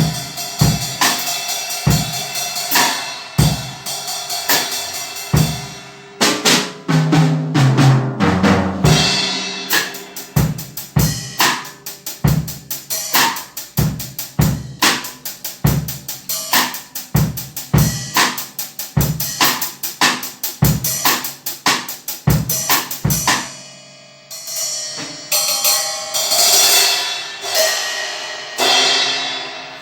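Acoustic drum kit played in a steady groove, kick and snare under ringing cymbals, with a fill of lower drum hits about seven to nine seconds in and sustained cymbal crashes near the end.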